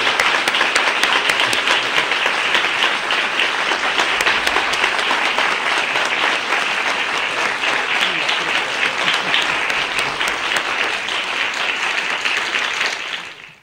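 Studio audience applauding steadily, dying away quickly near the end.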